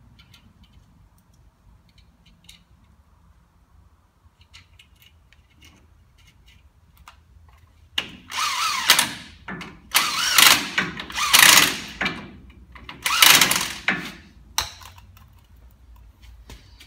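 Cordless drill run in four short bursts of about a second each, spinning nuts and cone washers down onto the studs of a Land Cruiser swivel hub. Faint clinks of small metal parts come first, and a sharp click follows the last burst.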